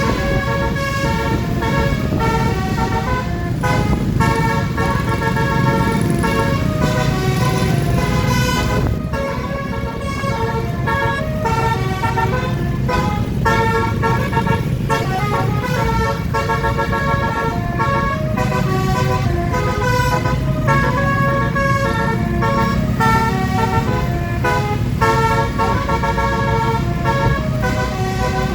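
Basuri telolet bus horn playing a tune, its notes stepping quickly from pitch to pitch, over the low rumble of the vehicle's engine.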